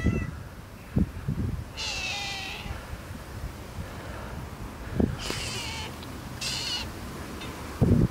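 Domestic cats meowing for food: three high-pitched meows, at about two, five and a half and six and a half seconds in. A few dull low thumps fall between them, the loudest near the end.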